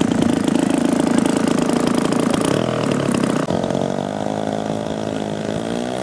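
Engine of a large radio-controlled model airplane running with its propeller turning, a rough, rattly sound at first that changes about halfway through to a smoother, steady hum as the plane moves off along the grass runway. Near the end the pitch starts to rise as the throttle is opened.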